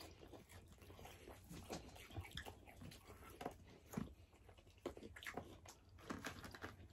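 Faint, irregular chewing and biting: small wet smacks and clicks of people eating a cheeseburger, chicken wings and fries.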